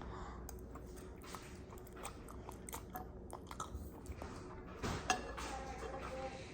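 Close-up chewing of spicy instant ramen noodles: a quiet run of soft, wet mouth clicks and smacks.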